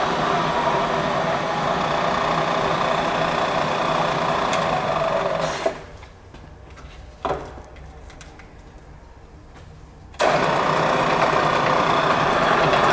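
Victor vertical milling machine with a 3 HP variable-speed head running steadily. It cuts off abruptly with a click about five and a half seconds in, gives one more click a second and a half later, and comes back on at full level about ten seconds in.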